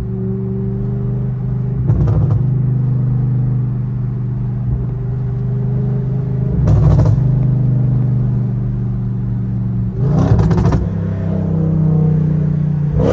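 Audi S8's twin-turbo V8 with catless downpipes running with a steady, deep drone, broken by four short, loud rasping bursts from the exhaust about 2, 7, 10 and 13 seconds in as it is given throttle.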